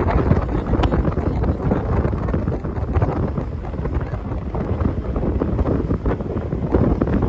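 Wind buffeting the microphone on the deck of a moving ferry, a loud, gusty rumble, with the rush of the boat's wake churning alongside.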